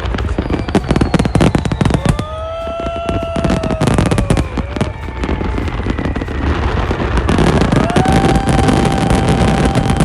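Fireworks display: rapid bangs and crackles, with several whistling tones that rise and fall, and a steady whistle from about eight seconds in.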